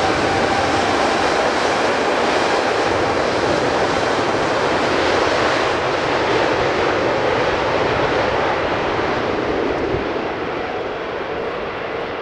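Boeing 787 jet engines at high thrust on a wet runway: a loud, steady jet roar with a faint whine in it early on. It eases off slowly over the last few seconds as the aircraft moves away.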